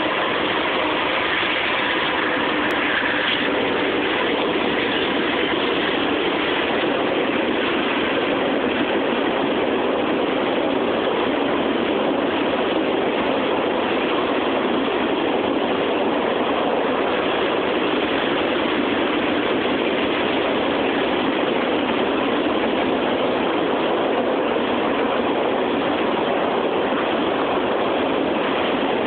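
CSX mixed freight train rolling past, making a steady, unchanging noise.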